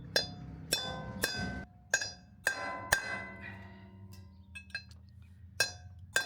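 Hammer blows driving a new wheel-bearing race into a caravan wheel hub: about eight sharp, ringing metallic strikes at irregular intervals, landing a bit at a time so the race goes in evenly.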